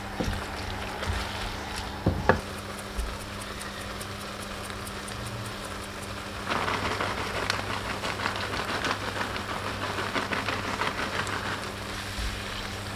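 Food frying in a pan: a crackling sizzle that grows louder about six and a half seconds in, with a couple of sharp utensil knocks near the start.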